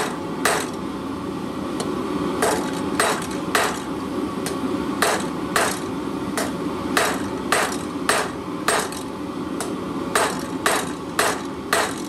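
Hand hammer striking a red-hot steel bar on the edge of an anvil, a run of sharp metallic blows about two a second after a short pause near the start: the steel is being necked down to isolate a section for a leaf's stem.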